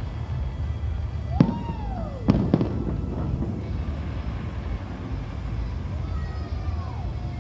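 Fireworks going off: a sharp bang about a second and a half in, then a louder double bang a second later, over a steady low rumble.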